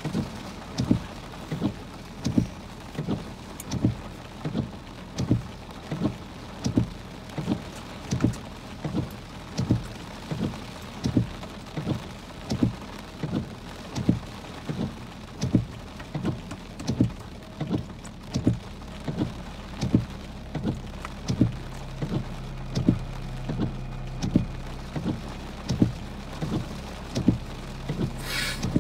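Heavy rain on a car with the windshield wipers sweeping, a regular thump about one and a half times a second as the blades turn. A low steady hum comes in about two-thirds of the way through, and a brief hiss passes near the end.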